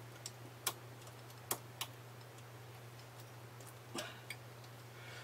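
A metal stitch-transfer tool clicking against the needles of a knitting machine with a ribber as stitches are lifted and moved by hand: about six faint, sharp clicks, scattered and irregular.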